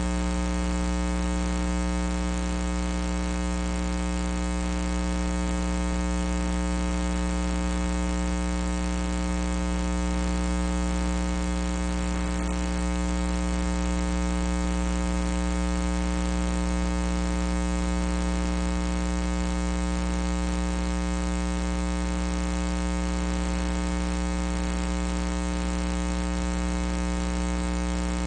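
Steady electrical mains hum and buzz: a constant, unchanging drone with many overtones and nothing else standing out.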